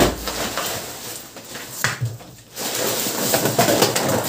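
Woven plastic sack bundle being handled and opened: the sack rustling and small boxed bicycle freewheels tumbling and sliding onto a concrete floor, with a sharp knock at the very start.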